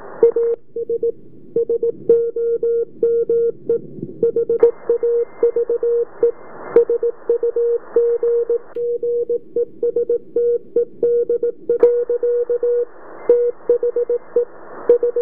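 Morse code (CW) signal received on a vintage Drake TR-4Cw tube transceiver: a steady tone keyed in dots and dashes over band hiss. The receiver is switched between its wide sideband filter and its 500 Hz CW filter. The hiss narrows away about half a second in with the CW filter, returns around four and a half seconds in, drops out again near nine seconds and comes back near twelve seconds.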